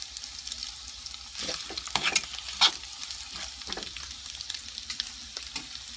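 Peeled, cornstarch-coated shrimp frying in hot oil in a nonstick pan: a steady sizzle with spattering crackles, and a few sharper clicks and knocks about two seconds in.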